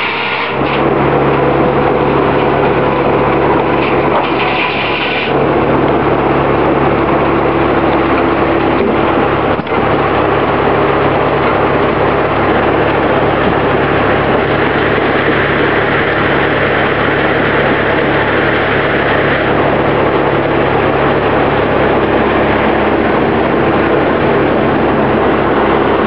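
Early-20th-century Oxford Foundry & Machine Co. circular sawmill running loud and steady, its spinning head saw cutting through an eastern hemlock log on the carriage.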